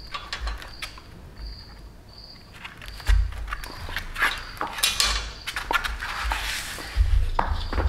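Small metal hardware clinking and clattering: bolts and nuts being handled and slid into the slotted rails of a roof rack lying on cardboard, in a string of irregular sharp clicks and knocks.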